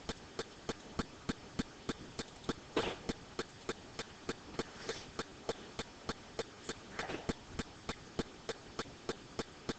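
A steady, even series of quiet sharp clicks, about three a second, with a few faint brief rustles between them.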